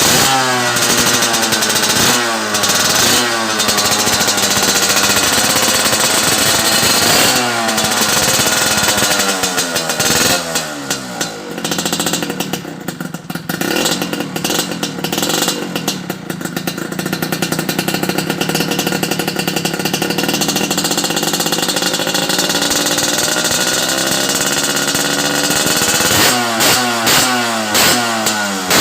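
AR-80 two-stroke motorcycle engine breathing through an RF Pipe S-type high-mount expansion-chamber exhaust, revved in sharp blips that rise and fall. Midway the revs are held high and steady for about a dozen seconds. Near the end it drops back to quick repeated blips.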